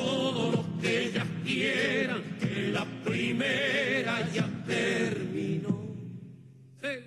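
Argentine folk song: a sung melody with strong vibrato over instrumental accompaniment. It dies away about six seconds in, with one short last note just before the end, as the dance ends.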